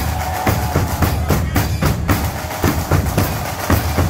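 A marching band's drum corps of bass drums, snare drums and cymbals beating out a march rhythm, with sharp strikes two to three times a second over the deep boom of the bass drums.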